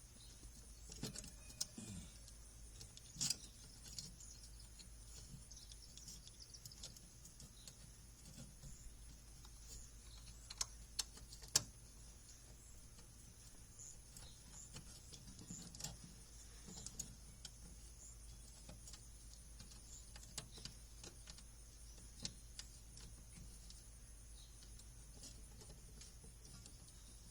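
Faint, irregular small clicks and light taps of parts and hand tools being handled during electrical work, over a steady low hum.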